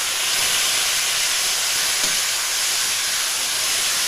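Chopped tomatoes sizzling in hot oil in a steel kadhai as they are stirred with a metal spoon: a steady hiss, with one light knock about halfway.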